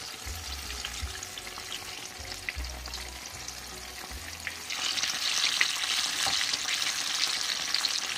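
Battered slices deep-frying in hot oil with a steady sizzle. Nearly five seconds in, the sizzle grows much louder and brighter as more battered pieces go into the oil.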